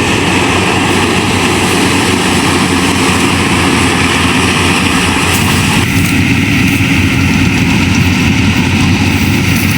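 Yanmar AW70 VW rice combine harvester running steadily under load. About six seconds in, part of its higher machine noise drops away.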